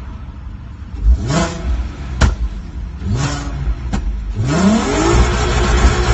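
Volkswagen Golf Mk5 R32's 3.2-litre VR6 is blipped twice from idle. Each time, as the revs fall, it gives a single sharp exhaust bang. The engine is then revved up and held high, near 7,000 rpm.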